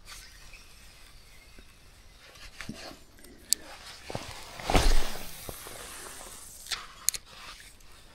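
Handling and wading noises of an angler spin-fishing from the water: a few sharp clicks and one louder rush of noise a little under five seconds in.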